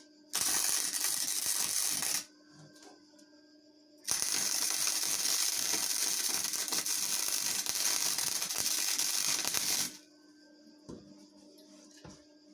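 Electric arc welding on rebar pieces: a crackling tack weld of about two seconds, then a longer continuous weld of about six seconds. A faint steady hum runs underneath.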